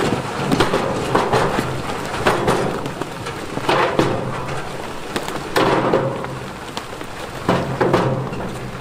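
Big stones clattering and tumbling in irregular crashes every second or two, over a heavy diesel engine running steadily.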